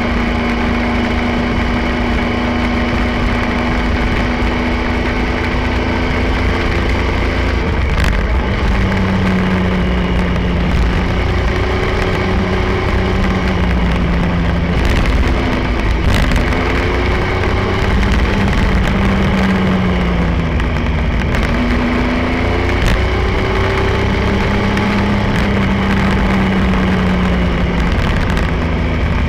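Triumph Tiger 1050's three-cylinder engine running on the road, heard with heavy wind rumble on the bike-mounted camera. The engine note drops sharply about eight seconds in, then rises and falls several times with throttle and gear changes.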